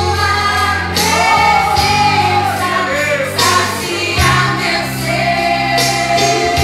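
Gospel worship song: women's voices singing a melody over sustained bass and keyboard backing with a steady beat.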